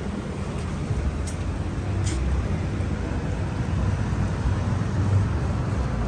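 Steady low rumble of outdoor street noise, traffic and wind, with two short faint ticks about a second and two seconds in.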